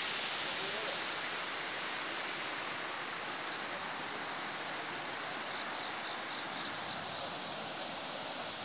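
River water rushing over shallow rapids: a steady, even rush with no break.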